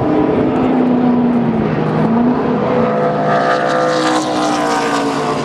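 NASCAR Nationwide Series stock cars' V8 engines running at speed past the grandstand. Their engine notes glide in pitch: one dips about two seconds in, then several cars' notes bend down together as they go by.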